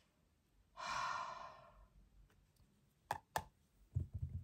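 A woman's long sigh, one breathy exhale about a second in. Two sharp clicks follow a little after the midpoint, and there are a few soft low thuds near the end.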